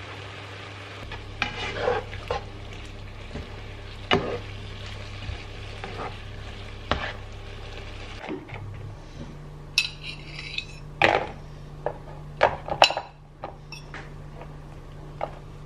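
Sliced mushrooms sizzling in a frying pan while a plastic slotted spoon stirs them, with scattered knocks and scrapes against the pan. In the second half a fork clicks and scrapes on a plate and a plastic container.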